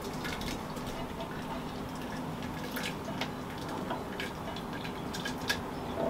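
Thick sauce dripping and plopping from a cooking pot into a blender jug as a spatula scrapes it out, with scattered soft clicks of the spatula against the pot.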